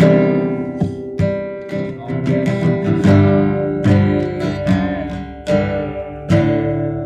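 Acoustic guitar strumming chords in an alternative country rock song, with no vocals.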